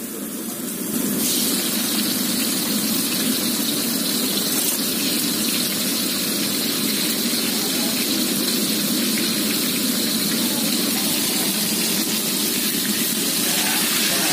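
Steady rushing of a gas stove burner under a wok of heating oil, which comes up about a second in. It gets a little louder near the end as tomato wedges go into the hot oil and start frying.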